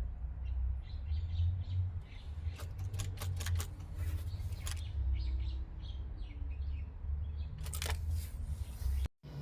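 Mazda RX-8's starter clicking in short irregular clusters without cranking the engine, over a low rumble: a no-start, which the owner puts down to a flat battery or a failed starter.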